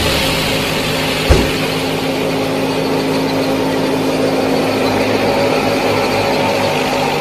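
A small motor running steadily at an even pitch, with one sharp knock about a second in.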